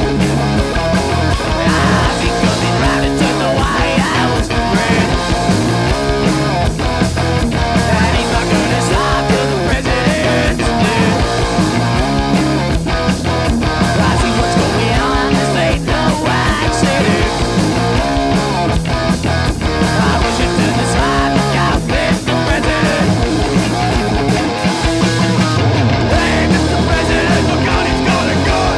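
Punk rock band playing live: electric guitar, bass and drums in a loud, steady full-band groove, the drum hits keeping an even beat.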